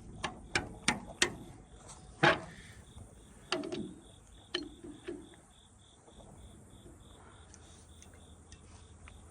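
Steel pipe wrench clanking and knocking against a hydraulic cylinder's gland nut as it is worked loose: a run of sharp metal knocks and clinks over the first few seconds. After that a faint high chirp repeats about three times a second.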